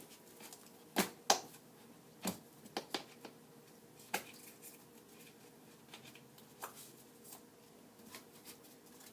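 Claw hammer prying a stubborn nail out of a wooden board: scattered sharp clicks and knocks of metal on wood, the loudest around a second in.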